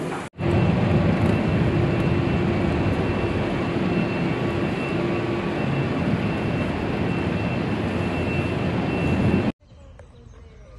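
Aircraft engine running, a loud steady noise with a faint steady whine over it. It cuts off suddenly near the end, leaving a much quieter background.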